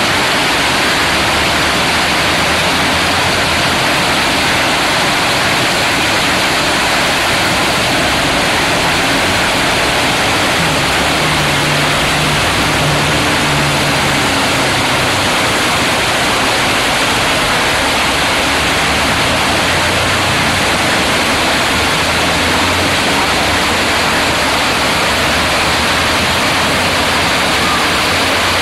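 Fountain jets splashing into the basin: a loud, steady rush of falling water.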